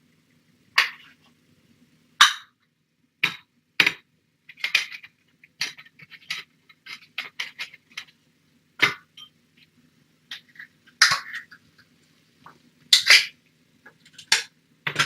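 Irregular clinks and knocks of a utensil against a pet-food dish, as cat food is dished up and stirred, spaced unevenly about a second apart, over a faint steady hum.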